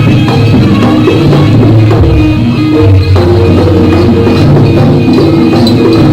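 Jaranan music played live by an East Javanese ensemble: drumming and struck percussion over sustained pitched instrument tones, loud and continuous.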